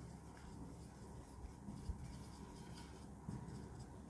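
Marker pen writing on a whiteboard: faint scratching strokes as a word is written out.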